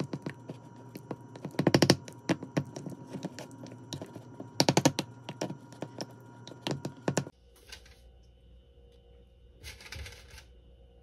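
A spoon stirring thick yogurt in a ceramic dish, clicking and scraping against the bowl in quick runs, loudest in two flurries; the stirring stops abruptly about seven seconds in. A brief rustle follows near the end.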